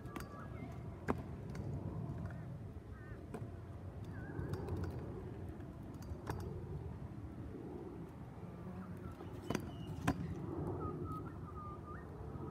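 Trick scooter wheels rolling on asphalt, with a few sharp clacks of the deck and wheels hitting the ground, two close together near the end. Small birds chirp now and then.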